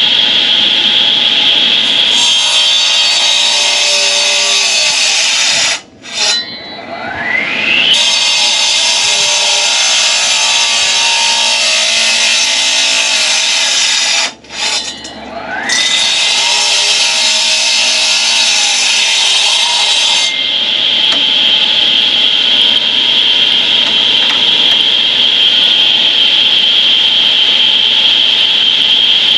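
Concrete saw running at high revs, its blade grinding through concrete pavers in three cutting passes. Twice the engine drops off briefly and whines back up to speed. Near the end it runs on at speed, not cutting.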